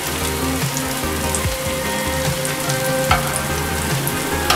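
Potato and puffed-rice cutlets deep-frying in hot oil in a kadhai, a steady sizzle from oil still bubbling hard around them, which shows they are not yet ready to turn. A few sharp clicks sound over it.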